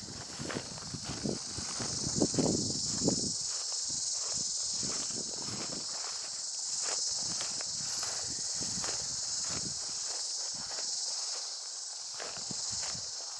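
Footsteps crunching along a woodland trail at an even walking pace, heavier in the first few seconds, over a steady high-pitched insect drone.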